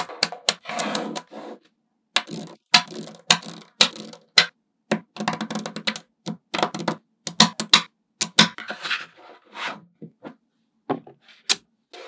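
Small magnetic balls clicking and snapping together as they are set in place: irregular sharp clicks, some in quick clusters with short rattling runs, and two brief pauses.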